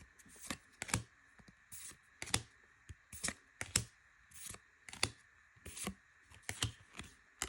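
One Piece trading cards being flipped through one at a time: a short swish and click of card stock sliding off the stack, about two a second.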